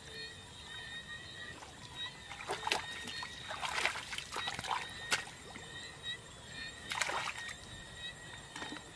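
Shallow muddy water splashing and sloshing as someone wades through it and gropes with bare hands for fish, in several short bursts. A steady high-pitched tone runs underneath.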